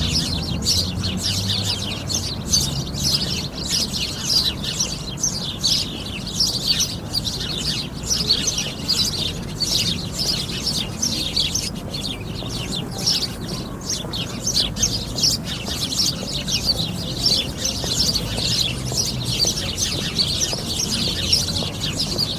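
A flock of sparrows chirping together: a dense, unbroken chatter of many short, overlapping chirps.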